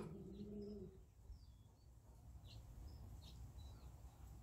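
Near silence with faint, scattered bird chirps, and a faint low drawn-out tone lasting just under a second at the start.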